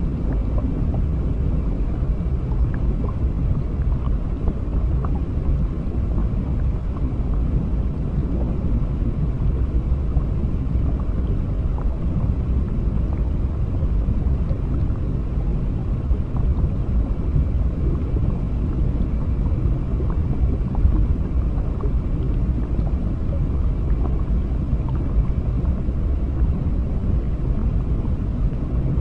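Underwater ambience: a steady, deep, muffled rumble of water with faint scattered ticks and crackles above it.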